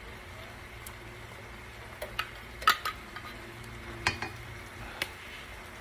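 A metal measuring cup and a spatula tapping and scraping against a frying pan as mayonnaise is emptied into it, giving a handful of sharp clinks, mostly in pairs, from about two seconds in. Under them a faint steady sizzle comes from the hot pan.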